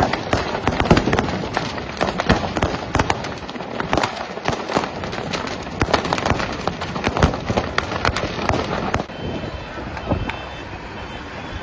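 Stock of firecrackers going off inside burning stalls: a dense, irregular string of sharp bangs and crackles. About nine seconds in the bangs stop, giving way to a quieter background of crowd voices.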